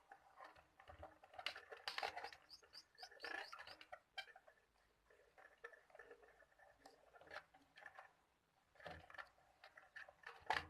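Electrical insulation tape being pulled off the roll and wrapped around a wire joint: quiet irregular clicks and rustling, with a few short high squeaks about two seconds in.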